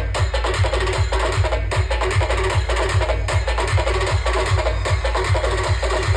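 Loud dance music with a fast, heavy bass beat and sharp percussion, played through a large DJ sound system.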